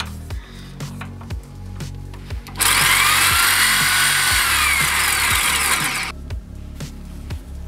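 Electric drill starting up and running for about three and a half seconds, chucked onto the shaft of a Katok hand meat grinder and spinning its auger, with a whine that wavers in pitch. Background music with a steady beat.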